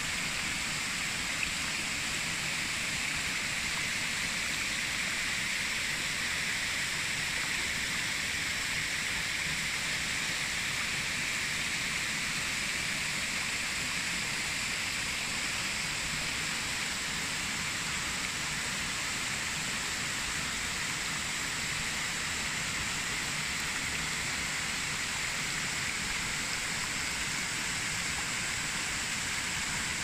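Tiered waterfall spilling over rock ledges into a stream: a steady, unbroken rush of falling water.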